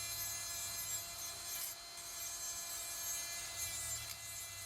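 Proxxon IBS/E rotary drill grinder working material: a steady rasping, abrasive sound with a faint high steady whine through it.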